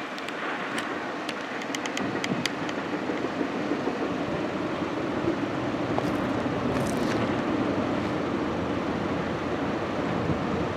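Intermodal freight train's stacked container and trailer cars rolling past: a steady rumble of wheels on rail that grows a little louder after about two seconds, with a run of light clicks near the start.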